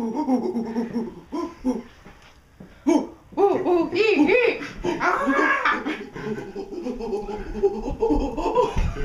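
A group of people laughing, several voices overlapping.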